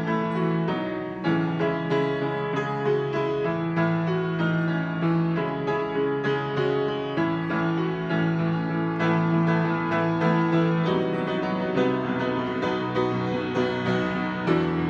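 Slow, gentle keyboard music: held chords that change every second or two, with no singing.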